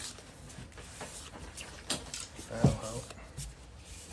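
A few light clicks and taps, with a brief low murmur of a voice about two and a half seconds in.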